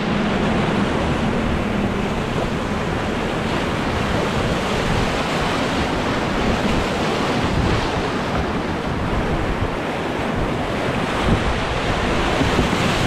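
Whitewater rapids rushing in a steady, loud wash of water around a boat running through them, with wind rumbling on the microphone.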